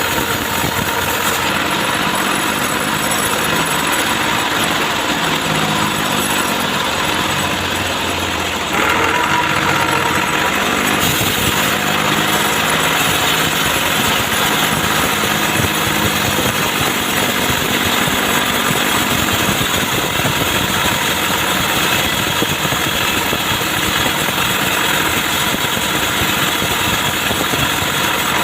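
Chainsaw engine running steadily, getting louder and brighter about nine seconds in, as when the saw is throttled up or bites into the wood.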